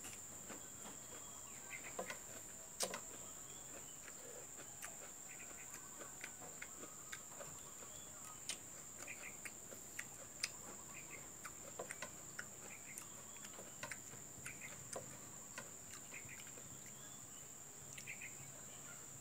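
A steady, high-pitched insect chirring, like crickets, with scattered soft clicks and smacks from eating rice and fish by hand off a plate.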